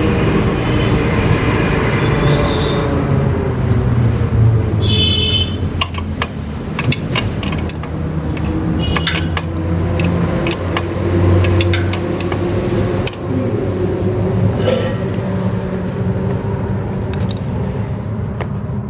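Steady engine and traffic noise, with scattered clicks and taps of metal tools as the motorcycle's rear wheel is tightened up, mostly in the middle of the stretch. A brief high tone sounds about five seconds in.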